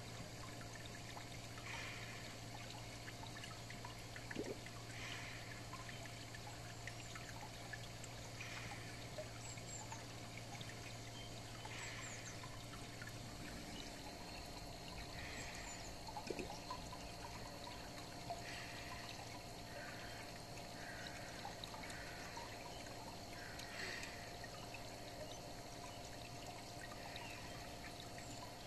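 Steady trickling, bubbling water of a garden pond heard underwater. A low hum beneath it stops about halfway through.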